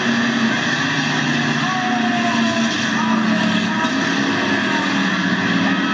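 Engines of cruiser-class stock cars racing on a dirt oval: a steady, loud drone whose pitch rises and falls as the cars lap.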